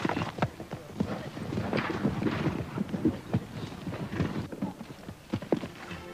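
Hoofbeats of several horses galloping on turf and jumping a hedge: a run of irregular dull thuds.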